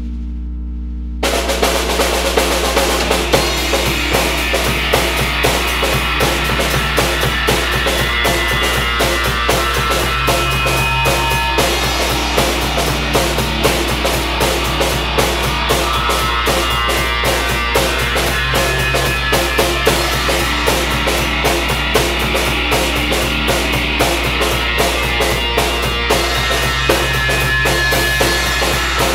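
Music: a low steady drone, joined about a second in by a rock drum-kit beat with bass drum and snare that keeps going.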